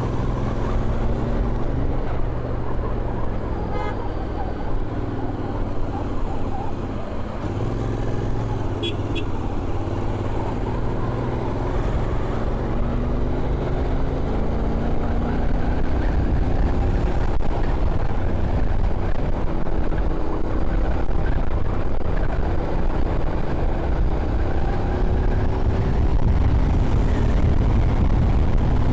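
Royal Enfield Continental GT 650's 648 cc parallel-twin engine and exhaust heard while riding, its pitch rising and falling repeatedly as the revs climb and drop through the gears, over a heavy low rumble of wind and road. It grows slightly louder towards the end.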